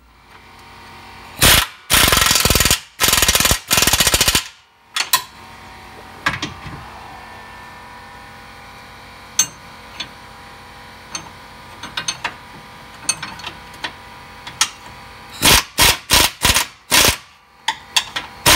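Air impact wrench with a 21 mm socket tightening the new lower control arm's mounting bolts. Four loud rattling hammering bursts come in the first few seconds, then a quick run of short bursts near the end. A steady machine hum runs underneath.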